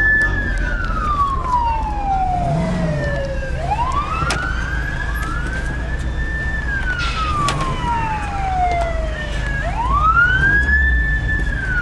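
Emergency vehicle sirens wailing: each cycle climbs quickly, holds briefly at the top, then falls slowly over about three seconds, with a second siren overlapping out of step. A steady low rumble of a moving car lies underneath.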